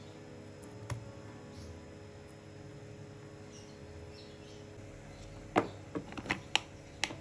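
Faint soft background music, with a light tap about a second in; from about two-thirds of the way through, a series of sharp clacks of plastic food-container lids being handled and set down on a wooden table.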